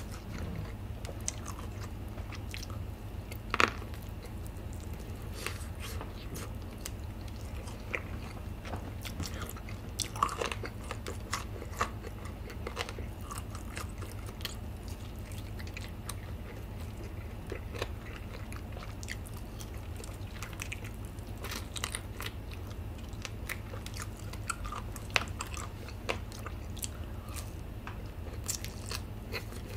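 Biting and chewing a Bburinkle-seasoned fried chicken drumstick: scattered crunches and mouth clicks over a steady low hum, the loudest about three and a half seconds in and again around ten seconds in.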